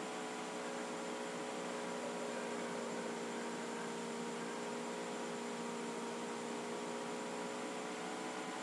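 Steady electrical hum over an even hiss, several faint tones held without change: the background noise of the recording.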